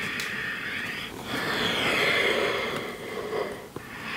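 A person breathing deeply and audibly in a few slow, breathy inhales and exhales of a second or two each, the loudest about two seconds in, in time with flowing cat-cow spinal movements.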